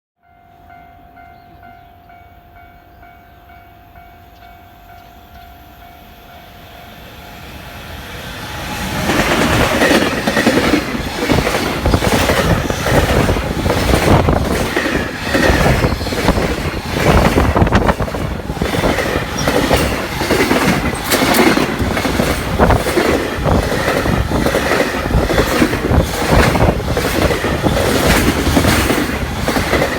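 A level-crossing warning bell rings with a steady, repeating tone as a freight train approaches. About nine seconds in, a JR Freight EF210 electric locomotive and its long rake of Koki 100 container flatcars pass at speed. The wheels rumble and clatter continuously over the rail joints.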